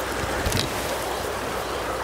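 Steady rushing noise of wind on the microphone and flowing river water, with one brief knock about half a second in.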